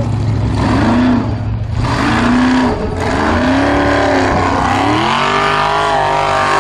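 Formula Offroad buggy's engine revving hard in short bursts that rise and fall in pitch as its wheels spin in loose sand on a steep climb, then a longer steadily rising rev near the end. A hiss of noise runs under the engine.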